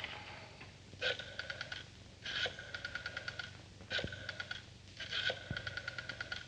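Rotary telephone dial being dialed, four digits in turn. Each is a short rasp as the dial is pulled round, then an even run of clicks, about ten a second, over a faint whirr as the dial springs back.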